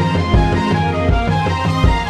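Celtic instrumental music: held melody and harmony notes over a steady low beat, a little more than one beat a second.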